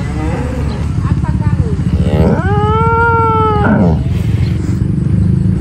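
Cattle mooing once: one long, fairly high-pitched call about two seconds in, rising at the start, holding steady, then falling away. A constant low rumble runs underneath.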